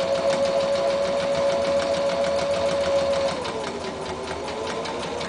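Domestic electric sewing machine stitching a straight seam: a steady motor whine with a fast, even needle clatter. About three seconds in it slows to a lower pitch and keeps stitching.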